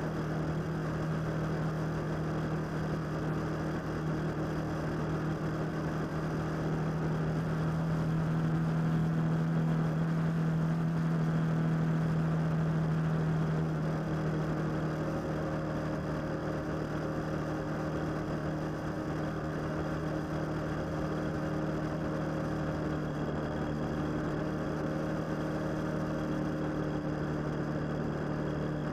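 Motorcycle engine running steadily while riding, with a continuous hum of engine and road noise. It gets a little louder about seven seconds in and eases back about fourteen seconds in.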